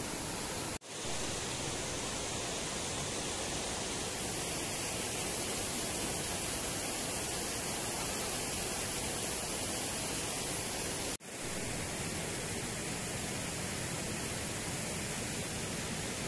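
A steady, even hiss with no distinct sounds in it. It drops out suddenly for a moment twice, about a second in and about eleven seconds in.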